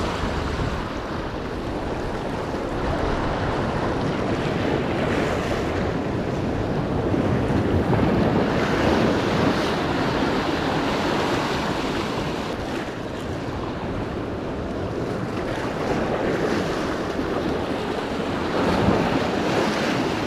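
Sea surf washing against rocks, rising and falling in slow swells, with wind buffeting the microphone.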